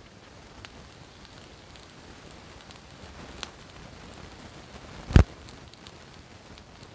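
Steady light rain pattering, with scattered small drop ticks; a single sharp knock about five seconds in is the loudest sound.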